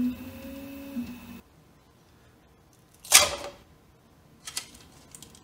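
Original Prusa i3 MK3 3D printer's stepper motors humming with a steady, slightly falling tone while printing, cutting off about a second and a half in. Then one sharp plastic clack about three seconds in and a few lighter clicks near the end.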